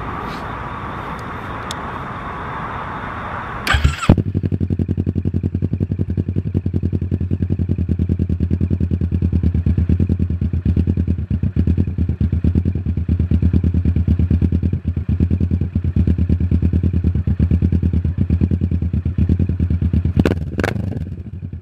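Kawasaki Ninja 650 parallel-twin engine through a Delkevic 8-inch Mini Carbon full exhaust with the baffle removed: after a few seconds of steady whirring it catches about four seconds in and settles into a loud, rapid, even idle.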